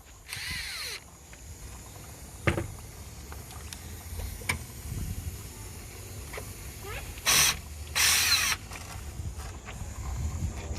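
Three short bursts of hissing over a low steady rumble, with a single knock about two and a half seconds in.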